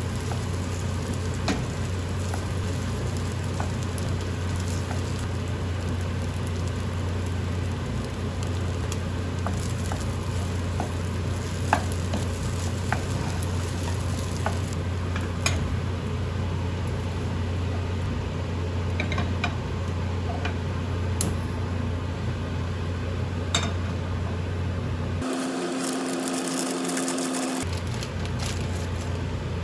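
Food sizzling as it fries in a pan, with scattered light clicks of a utensil against the pan over a steady low hum. Near the end the sizzle briefly gives way to a different steady hum for about two seconds before returning.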